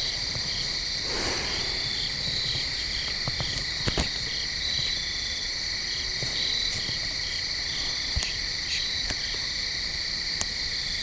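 Chorus of crickets and other insects trilling steadily in several high-pitched layers, with one pulsed call repeating about three times a second. A few faint ticks come through.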